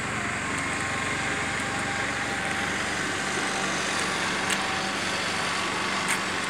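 A small engine running steadily under a steady rushing noise, with two faint clicks late on.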